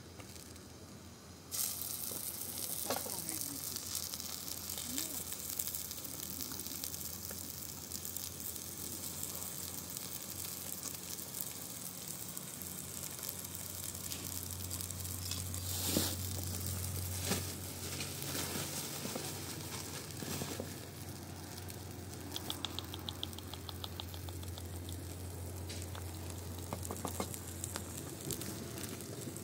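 Food sizzling as it fries in a pan. The sizzle starts suddenly about a second and a half in, with a couple of sharp knocks partway through.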